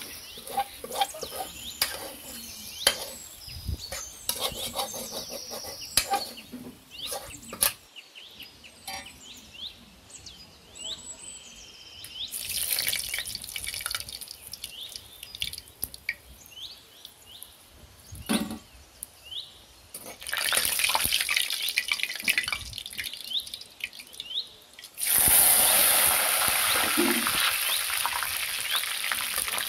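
A metal spoon scrapes and clicks against a metal kadai as food is stirred. Then dried red chillies fry in mustard oil, sizzling and crackling, with the loudest, steady hiss from about 25 seconds in.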